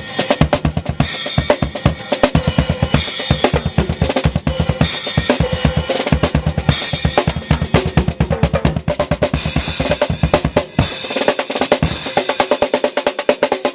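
Drum kit played fast and busily: rapid bass drum strokes under snare hits and washes of cymbal.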